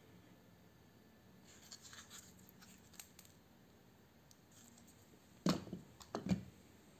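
Faint scraping and rubbing of a stripped magnetic lighting ballast being turned over in the hand, then two knocks about a second apart near the end as it is set down on a pile of other ballasts.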